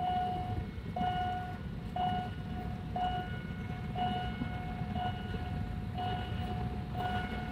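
Level-crossing warning signal dinging about once a second, one steady tone, while a train approaches the crossing, over a steady low rumble.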